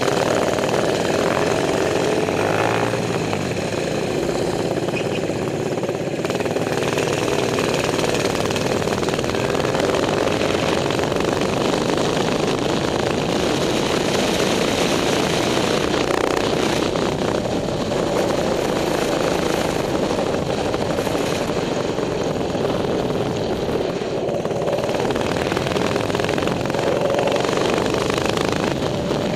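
Small single-cylinder four-stroke minibike engine running steadily under way, its pitch drifting a little down and back up as the throttle changes, with wind noise over the microphone.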